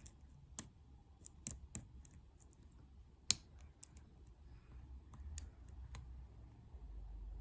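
Faint, irregular clicks of a steel lock pick moving through the pins of an EVVA DPI euro cylinder, probing for binding pins, with one sharper click about three seconds in.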